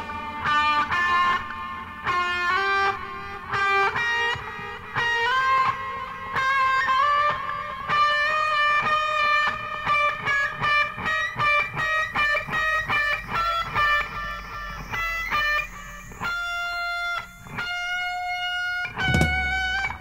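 Electric guitar solo with effects, played from a vinyl record: a long run of quick picked notes, settling near the end into a few long held notes.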